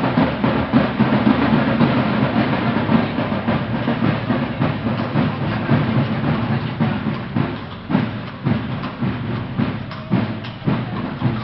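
Dense, continuous clatter of a passing street parade. In the last few seconds, sharper separate knocks come through as horses pass close by: hoofbeats on the pavement.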